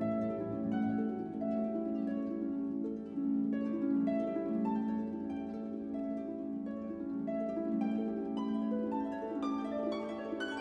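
Instrumental background music: a flowing run of short notes over a steady held low note.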